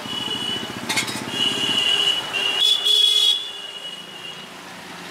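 Street traffic: a motorcycle engine running for the first couple of seconds and a vehicle horn sounding in several high, held toots, loudest around three seconds in. Under it, the hiss of samosas deep-frying in a karahi of oil.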